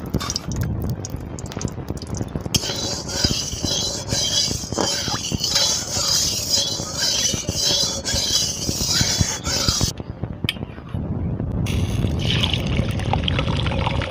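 Hot oil sizzling and crackling in a kadai, with light clinks of utensils. The sizzle starts sharply a couple of seconds in and cuts off suddenly near the ten-second mark.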